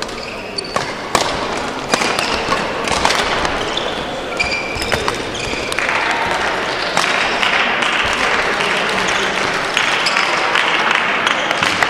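Badminton rally sounds in a sports hall: sharp cracks of rackets striking the shuttlecock and thuds of players' footfalls on the court floor. Short squeaks come in the first half, and the general din of the hall grows louder about halfway through.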